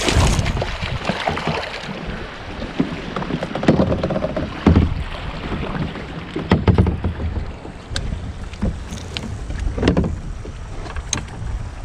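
A hooked bass thrashing and splashing at the surface beside a kayak at the start, then water slapping and sloshing with scattered sharp knocks and clicks as the fish is played toward the net.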